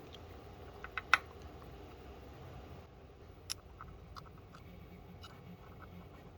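Small screwdriver working the tiny screws of a DVR cooling fan: light metallic clicks and taps, a quick cluster of three about a second in, one more partway through, then fainter ticks.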